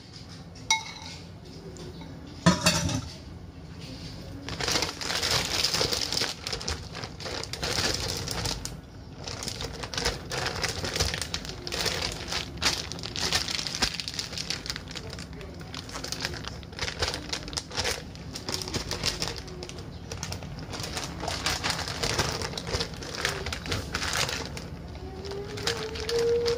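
A metal spoon clinks and knocks against a bowl, with one loud knock about two and a half seconds in; then a plastic zip-top bag full of marinated meat crinkles and rustles as hands press it flat.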